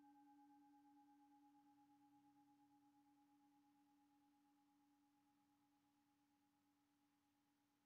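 Faint ringing of a singing bowl slowly dying away: a low tone with a higher overtone above it, pulsing slightly as it fades.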